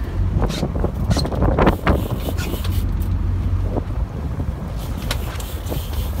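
Boat engine running with a steady low rumble and wind on the microphone, over which water splashes several times as a hooked marlin thrashes at the surface beside the hull, the loudest splash about a second and a half in.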